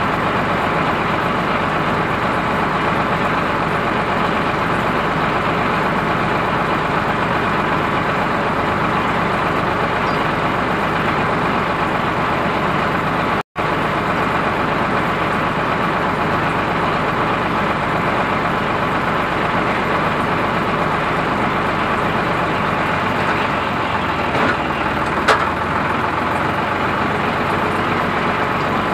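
Ford 3600 tractor engine running steadily, heard up close. The sound drops out for an instant about halfway through, and a single sharp click comes near the end.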